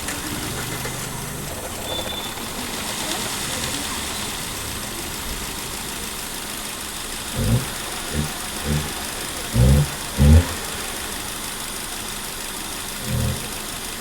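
Hyundai Accent's four-cylinder engine idling on CNG with irregular low thumps from about halfway through, the uneven beat of a misfire from the number 2 CNG injector.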